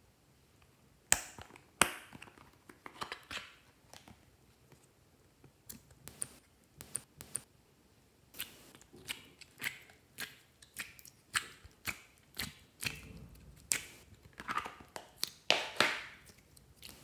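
Sharp, irregular clicks, snaps and taps of a hard plastic Hello Kitty-shaped case and its compartment tray being opened and handled. Near the end comes a denser run of sticky squishing as slime is squeezed between the fingers.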